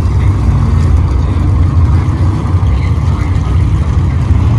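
Loud, steady low rumble of a car's engine and exhaust running.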